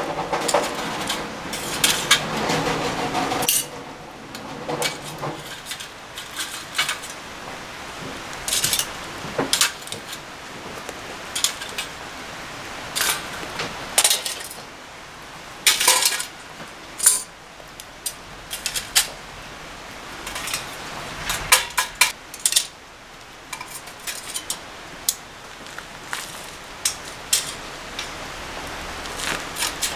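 Kitchen utensils clinking and knocking against pots, pans and dishes in irregular, separate strikes, with denser clattering in the first few seconds.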